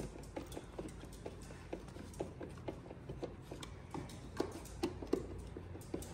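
Light, irregular clicking and ticking, several a second, from a hand screwdriver turning screws into the plastic body of a ride-on toy car.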